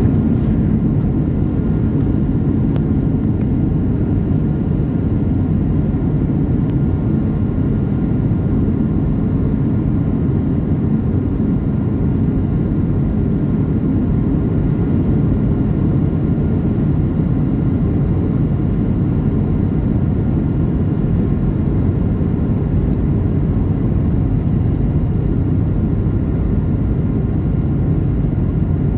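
Steady cabin noise of a Boeing 737-800 in flight, heard from a window seat: an even low rumble of its CFM56 engines and airflow, with a faint steady whine above it.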